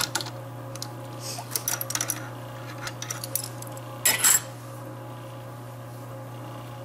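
A Beall wood-threading tap being unscrewed by hand from a tapped wooden faceplate blank on the lathe: scattered metallic clinks and rattles, with a louder clatter about four seconds in. A steady low hum runs underneath.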